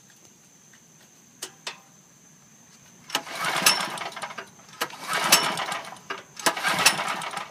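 Three pulls on the recoil pull-starter of a Powerland portable natural gas generator, starting about three seconds in. Each pull makes a rasping burst of the engine turning over, and each falls away without the engine catching. Before the pulls there are two light clicks.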